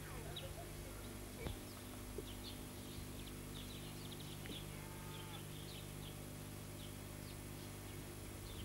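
Small birds chirping in short, high, scattered notes over a steady low hum, with a small click about one and a half seconds in.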